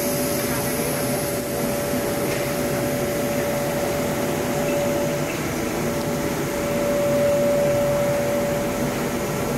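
Air-float table's blower running steadily: a constant motor hum and whine with airy noise, which swells slightly about two-thirds of the way through.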